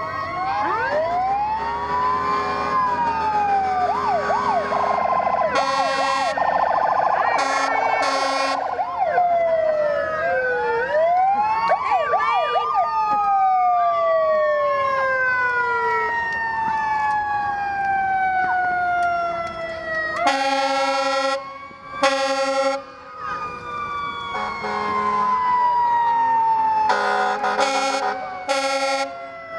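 Several emergency-vehicle sirens going at once, overlapping rising and falling wails with quick yelping stretches, broken by loud truck air-horn blasts: a few short ones early on, a longer pair past the middle and a cluster near the end.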